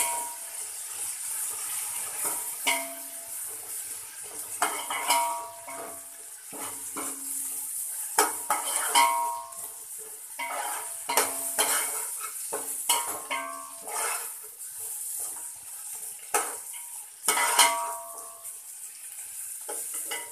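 Steel ladle scraping and knocking against a large aluminium pot as onions, green chillies, mint and coriander leaves are stirred and fried in oil, under a steady sizzle. The pot rings briefly after the harder knocks.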